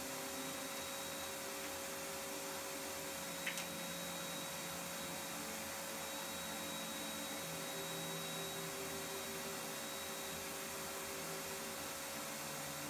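Steady low electrical-sounding hum over a hiss, with one short click about three and a half seconds in.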